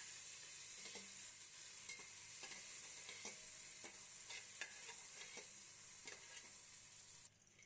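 Ginger-garlic paste and sliced onions sizzling in hot cooking oil in a steel pot, with the clicks and scrapes of a steel slotted spatula stirring them. The sizzle stops abruptly near the end.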